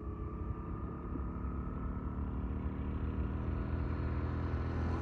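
Motorcycle engine running at a steady pitch, growing gradually louder as the bike comes closer.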